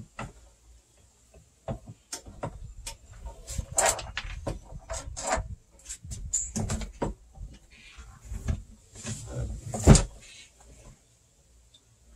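Irregular clicks, knocks and short rattles of a walk-behind lawnmower's metal handlebar being handled and fitted to the mower, with one sharp knock about ten seconds in.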